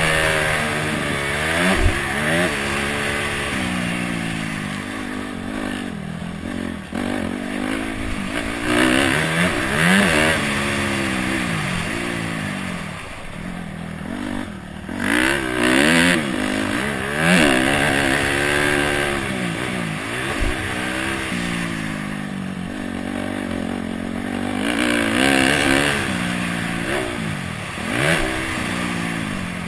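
Honda CRF250X's single-cylinder four-stroke engine being ridden hard, revving up and dropping back again and again as the throttle opens and closes, with wind hiss. Two brief low thumps come about two seconds in and again past the middle.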